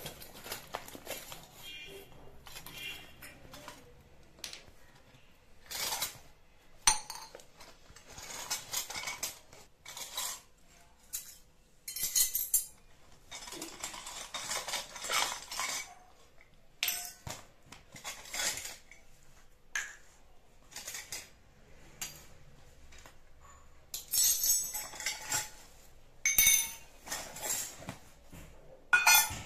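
Miniature stainless-steel toy cooking utensils (tiny pots, plates, cups and spoons) clinking and clattering as they are lifted out of their bag and set down on a tiled floor: irregular metallic clinks, some ringing briefly.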